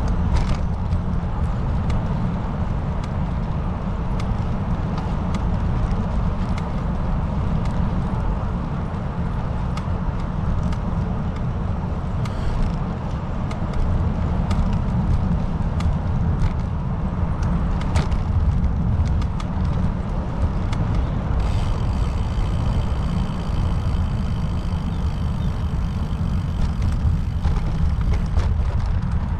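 Road and wind noise of a moving car: a steady low rumble with a hiss above it. About twenty seconds in, a steady high-pitched whine of several tones joins it.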